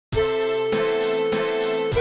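Instrumental music starts abruptly: a long held note over a steady beat of evenly spaced strikes, a little under two a second.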